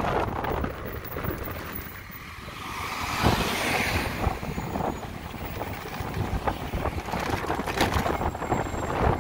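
Wind buffeting the microphone of a moving electric motorcycle, a rushing, rumbling noise without any engine note. A louder rushing swell comes about three and a half seconds in, and a few sharp knocks come near the end.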